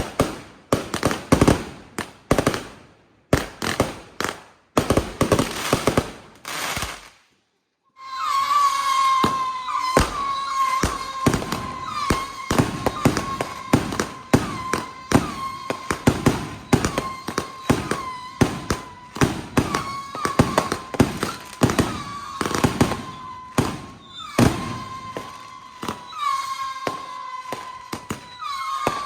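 Consumer fireworks going off in rapid volleys of sharp bangs, with a brief drop to silence about seven seconds in. After it a dense run of bangs carries on over a steady high tone.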